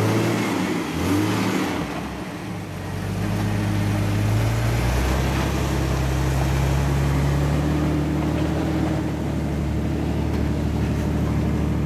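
Jeep Wrangler's engine revving up and down as it crawls over a wet rock on an off-road trail, then running steadily with its pitch slowly rising.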